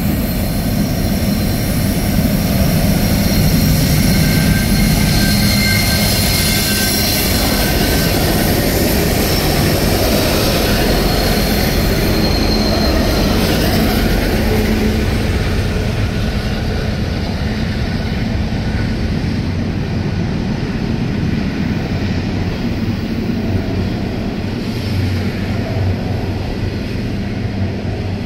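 Diesel-electric freight locomotives of the SSR CEY class pass close by under power, their engine sound loudest a few seconds in with steady high tones over a heavy rumble. From about halfway, coal hopper wagons roll past with a steady rumble of wheels on the rails.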